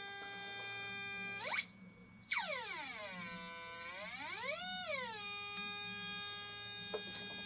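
NE555 timer square-wave generator played through an LM386 amplifier and small loudspeaker: a steady buzzy tone rich in harmonics. A little over a second in, its pitch sweeps up to a high whine, then swoops down low, rises and falls once more, and settles back to a steady buzz. It cuts off at the end.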